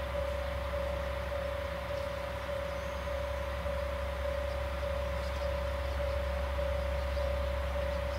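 Diesel railcar idling at the platform with a steady low hum, under a steady tone that pulses about every half second and carries on throughout.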